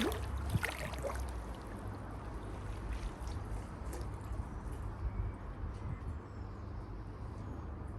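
Pond water trickling and gurgling over a steady low rumble, with a few short splashy sounds in the first second.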